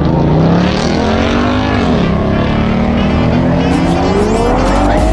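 A high-performance vehicle engine revving: its pitch dips about two seconds in, then climbs steadily, as when the engine is revved up or accelerating.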